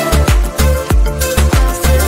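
Background music: an instrumental stretch of a pop song with a steady beat of deep bass drum hits that fall in pitch, about three a second.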